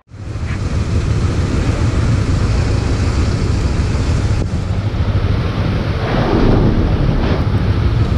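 Loud, steady wind rumble on the microphone mixed with vehicle noise, with a brief swell about six seconds in.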